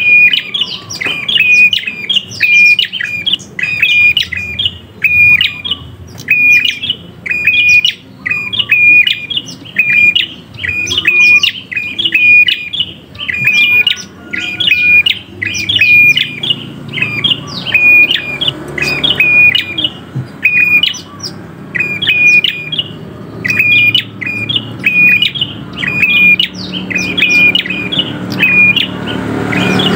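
A caged prenjak (prinia) calling loudly and persistently, giving a steady series of sharp, chipping calls at about two a second with only brief pauses. A low rumble builds underneath in the last seconds.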